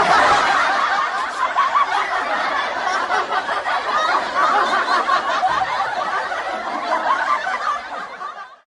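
Laugh-track style crowd laughter: many people laughing together at once, starting abruptly and fading out near the end.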